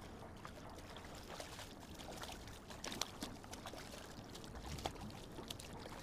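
Hooked fish thrashing and splashing at the surface beside a kayak: a ragged run of splashes, with sharp ones about three seconds in and again about five seconds in.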